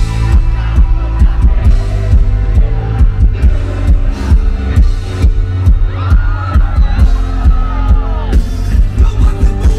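Live band playing loud through a concert PA, heard from the crowd: heavy bass and a steady drum beat with electric guitars and keyboard. A wavering melodic line comes in about six seconds in.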